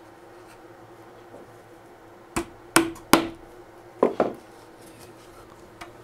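Sharp knocks of wood against wood as the cedar bird feeder frame is handled on the workbench: three knocks about two and a half seconds in, then two more a second later.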